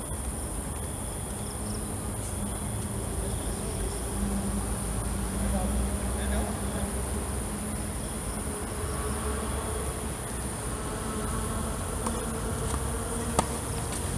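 Steady high-pitched insect chorus, like crickets, throughout, over a low background rumble. A single sharp knock near the end is a tennis ball being struck on the serve.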